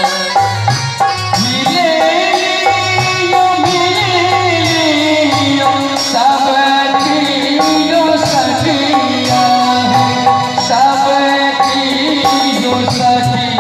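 Loud South Asian-style music: a gliding, ornamented melody over a steady, repeating drum pattern.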